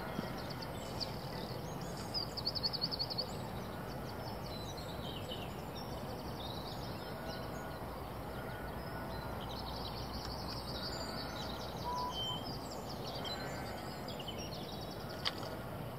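Small birds chirping and calling over a steady background noise, with a quick run of rapid chirps two to three seconds in. A single sharp click comes near the end.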